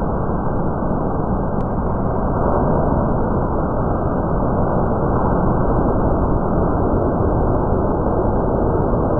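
A thunderstorm's own sound slowed down to a tenth of its speed, which turns it into a low, steady, engine-like noise with no distinct claps or drops.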